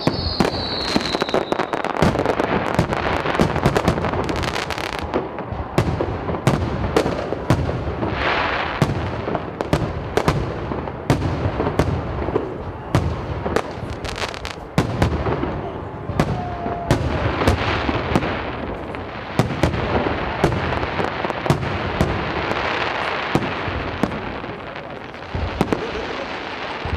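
Fireworks going off in a dense barrage of many overlapping bangs and crackles. A falling whistle fades out in the first two seconds.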